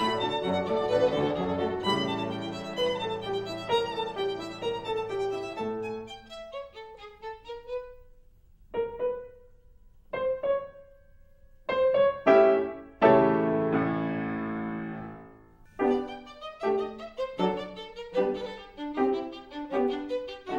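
Instrumental score for a silent film. A busy passage thins out into a few short, sharp stabs with pauses between them, then a held chord that dies away, and a quick rhythmic passage picks up near the end.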